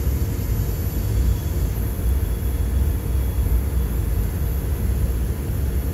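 Freight train of covered hopper and tank cars rolling past, its wheels on the rails making a steady low rumble.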